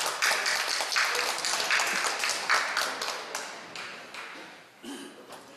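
Scattered clapping from a small audience, many quick irregular claps that die away over the last couple of seconds.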